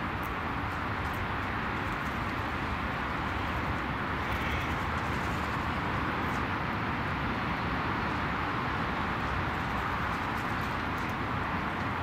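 Steady outdoor background noise, an even hiss, with a few faint scattered ticks.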